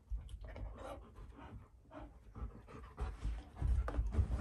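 Alaskan malamute and golden retriever puppy play-fighting: panting, with irregular scuffles and thuds of paws and bodies on the floor, heavier in the second half.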